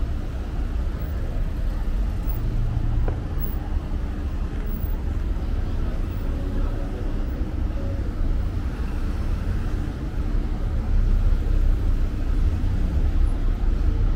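Slow city street traffic passing close by: car engines and tyres, a steady low rumble.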